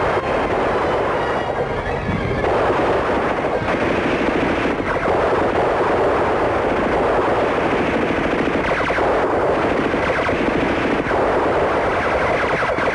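Belt-fed machine gun firing in long, rapid bursts that run almost without pause.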